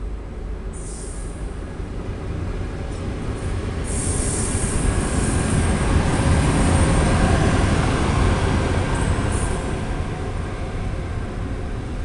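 Softronic Transmontana electric locomotive running light, with no train behind it, passing close by: a rumble of wheels on rail that grows to a peak as it goes by about halfway through, then eases a little. There are a few brief high-pitched squeals.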